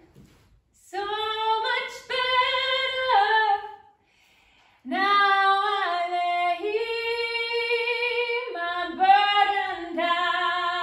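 A woman singing solo without accompaniment, holding long notes. The song breaks off twice, for about a second at the start and again about four seconds in.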